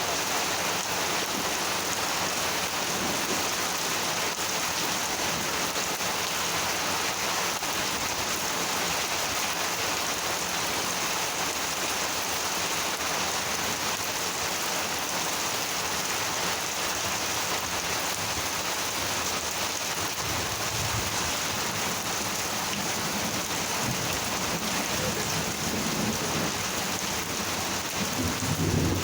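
Monsoon thunderstorm: rain falling steadily, with low rumbles of thunder about two-thirds of the way in and again, louder, near the end.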